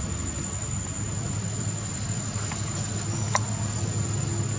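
Steady high, thin insect drone with a low steady hum beneath it, and two short sharp ticks a little past the middle.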